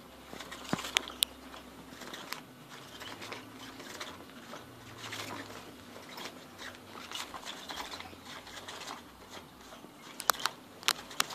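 Irregular rustling and crinkling of the nylon cover of a Cat's Meow cat toy as its battery-driven wand moves underneath and a cat steps on it, with a few sharp clicks about a second in and again near the end.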